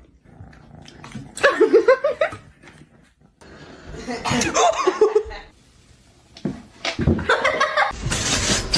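A person laughing in three bursts.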